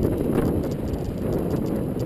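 YT Capra mountain bike rattling and clattering over a rough trail, with wind buffeting the microphone.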